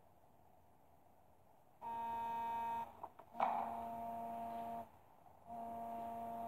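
A steady buzzing hum at one pitch, sounding three times for about a second each with short gaps, starting about two seconds in.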